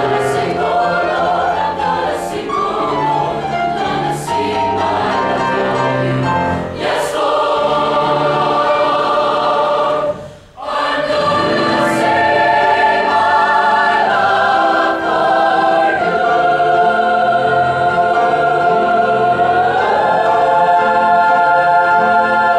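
Mixed choir of men's and women's voices singing in sustained chords, with sung consonants hissing through. The sound breaks off briefly for a breath about halfway through, then comes back louder in long held chords that step up in pitch near the end.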